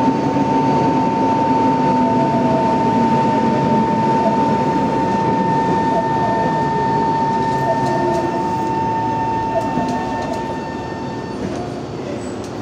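Tokyo Metro 03 series chopper-controlled subway train running, heard inside the car: a steady rumble of wheels and motors with the chopper controller's high steady whine over it. The whine cuts off about eleven seconds in.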